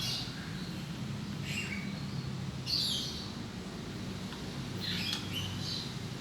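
Lory (a pet nuri parrot) giving short, shrill calls, about five of them spaced a second or more apart, over a steady low hum.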